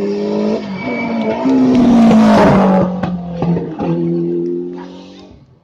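Rally car racing past on a special stage, its engine revving hard with a few quick gear changes. It is loudest about two seconds in as it passes, then fades away over the last second.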